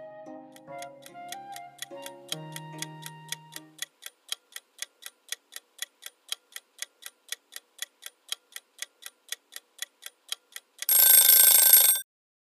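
Countdown clock-ticking sound effect, about four ticks a second, under soft flute music that fades out in the first few seconds. Near the end a loud alarm rings for about a second and cuts off, marking the timer running out.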